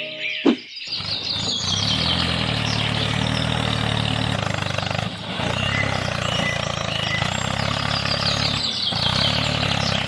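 A small engine starts about half a second in and runs steadily, with birds chirping in the background.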